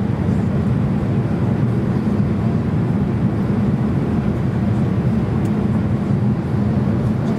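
Steady low cabin rumble heard from a window seat over the wing of a Boeing 787-8 Dreamliner descending on approach with flaps extended.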